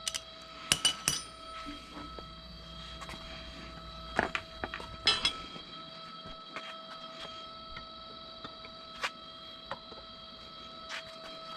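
Scattered sharp metallic clinks and knocks, about half a dozen, the loudest a cluster around a second in and another around four to five seconds in, as metal fork, shock and fastener parts and tools are handled during the fork mounting. A faint steady high hum runs underneath.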